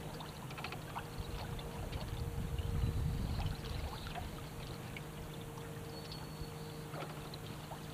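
Water lapping and trickling against a small boat's hull, over a small outboard motor running steadily at low speed. The lapping swells briefly two to three seconds in.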